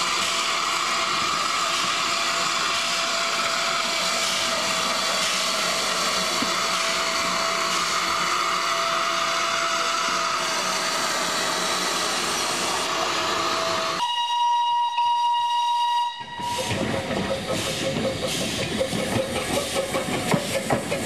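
Steam locomotive, an LBSCR Terrier 0-6-0T tank engine, hissing steam steadily, then one steam whistle blast about two seconds long, followed by uneven hissing with quick beats of steam.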